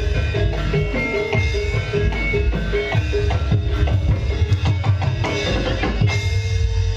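Live Javanese gamelan (campursari) music: quick repeated metallophone notes over drum strokes. About six seconds in, the drumming stops and a long held note rings on.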